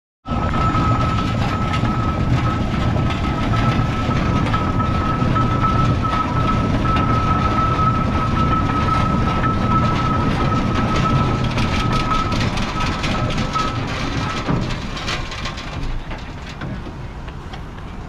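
Fowler steam ploughing engine running: a steady, dense low rumble with a thin steady high tone over it that stops about thirteen seconds in. The whole sound eases off over the last few seconds.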